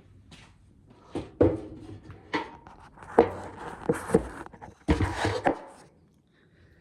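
Ears of corn being handled and dropped into a container: a string of sharp knocks with a rattling clatter in the middle, dying away about a second before the end.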